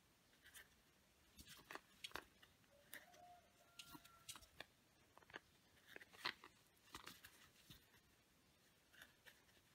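Faint, irregular scratchy clicks of a crochet hook and cord yarn being worked stitch by stitch through a crocheted edge in single crochet.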